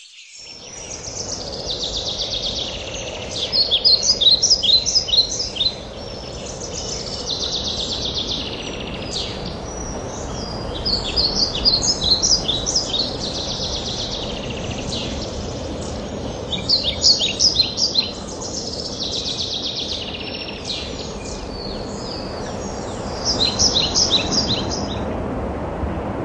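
Songbirds singing bursts of rapid, repeated chirps every few seconds, over a steady rushing background noise.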